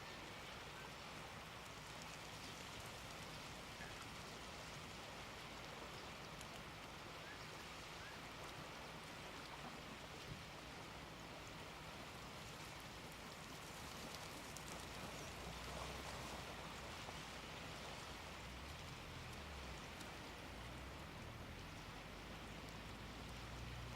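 Faint, steady hiss of small waves washing on the seashore, with a low rumble coming and going in the second half.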